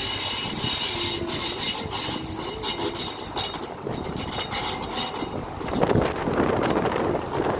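An HST (InterCity 125) with class 43 power car 43170 moving through the platform, its wheels squealing in a steady high-pitched whine over a dense hiss, with scattered clicks. The low rumble grows heavier after about five and a half seconds.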